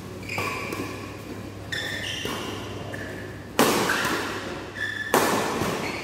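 Badminton rally: rackets striking the shuttlecock, the two loudest hits about three and a half and five seconds in, each followed by a long echo in the hall. Short squeaks from shoes on the court come between the hits.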